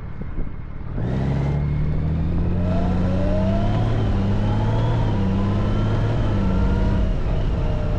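Honda Gold Wing's flat-six engine running at road speed under heavy wind rush, picked up by a handlebar-mounted camera. About a second in the sound suddenly gets louder, and the engine pitch rises slightly and falls back in the middle.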